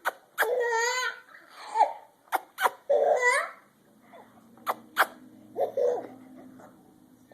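A baby laughing in bursts of wavering, high-pitched giggles, set off by a woman's sharp mouth pops. There are about six pops in all, and the laughter comes after the first ones; the second half holds only quieter pops.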